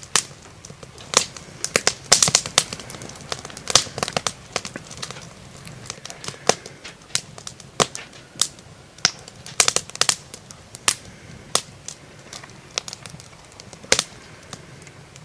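Fork clicking and scraping against a plate during eating: irregular sharp clicks, bunched in quick clusters about two, four and ten seconds in.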